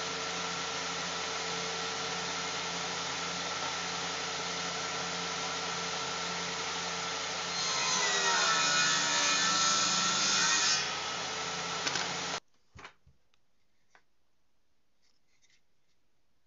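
Table saw running steadily, then cutting a shallow groove along the edge of a wooden strip about eight seconds in; the cutting noise rises over the motor for about three seconds. The sound then cuts off suddenly, leaving only a few faint clicks.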